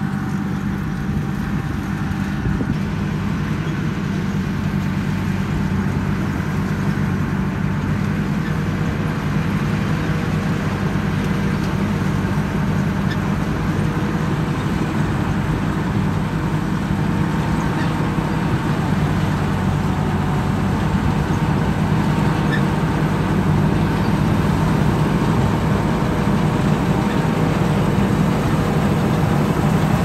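Rice combine harvester's engine running steadily under load while cutting rice, growing slightly louder over the stretch.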